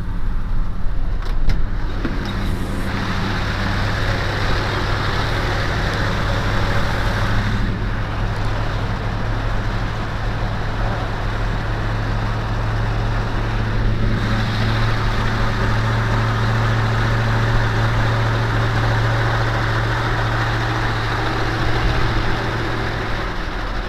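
Motor vehicle driving: the engine's steady low drone under tyre and road noise, the rushing noise swelling and easing as it goes.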